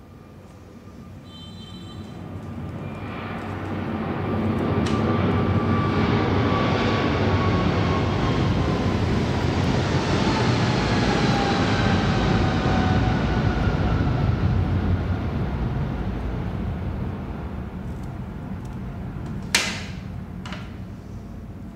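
A passing vehicle: noise that builds over several seconds, holds, then fades, with a tone that slowly falls in pitch as it goes by. A sharp click comes near the end.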